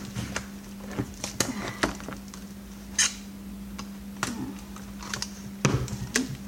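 Irregular sharp clicks and taps of plastic monitor parts and tools being handled during disassembly, over a steady low hum.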